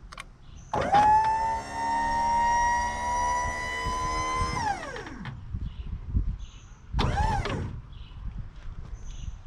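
A siren wailing: it rises to a high held tone for about four seconds and then falls away. A shorter rise-and-fall whoop comes a couple of seconds later.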